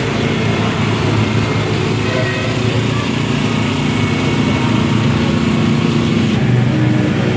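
Small engine running steadily at a constant speed, a low even hum.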